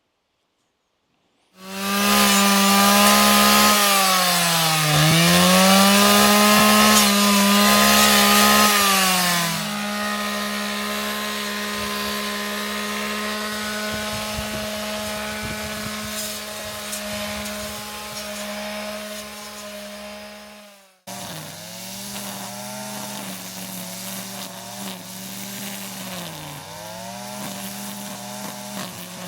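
Petrol strimmer (two-stroke brushcutter) running at high revs while cutting back grass and vegetation. Its pitch sags and recovers several times as it takes load, and it dips repeatedly under load again in the last part.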